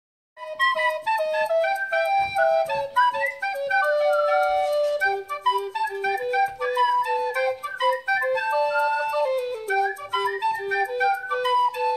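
Background music: a quick melody of short, high notes.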